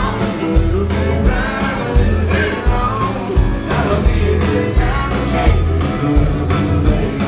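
Country band playing live: strummed acoustic guitars and bass under a singing voice, with a steady beat.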